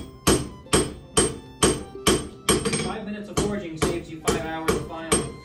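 Blacksmith's hand hammer striking hot iron on an anvil in a steady rhythm, about two blows a second, each blow with a short metallic ring.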